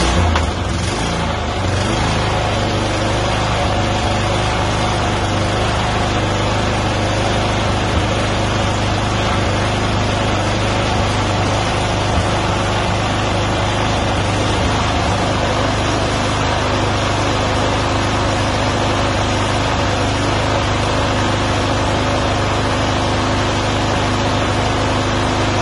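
Toro TimeMaster walk-behind mower's engine running steadily.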